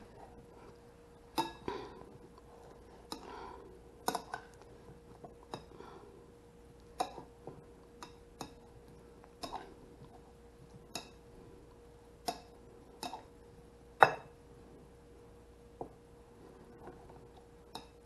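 A utensil stirring chopped chicken in a ceramic bowl, knocking and clinking against the bowl's side at an uneven pace, about once a second, with one louder knock about three-quarters of the way through. A faint steady hum runs underneath.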